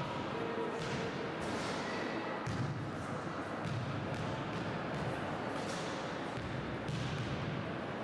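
Basketballs bouncing and thudding on a sports hall floor, several separate impacts over a steady background noise.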